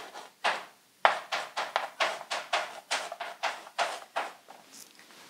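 Chalk writing on a blackboard: a quick run of short taps and scrapes, about three a second, one for each stroke of the Korean letters. It goes quiet about four and a half seconds in.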